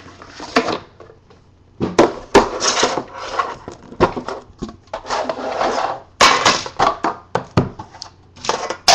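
An Exquisite football card box being handled and opened: rubbing and scraping as the inner case slides out of its sleeve, with several sharp knocks as the pieces are set down on the table.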